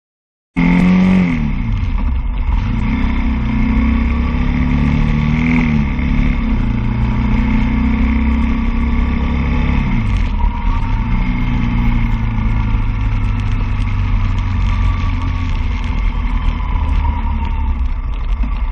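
Road traffic heard from a moving vehicle, starting abruptly about half a second in: vehicle engines rising and falling in pitch as they speed up and slow down, over steady road and wind noise.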